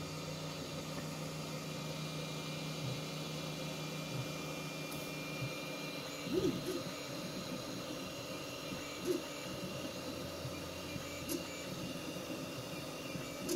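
FDM 3D printer running: a steady whir from its cooling fans with whining stepper-motor tones that change pitch as the print head moves, laying bridging lines across a gap. A few brief knocks around the middle.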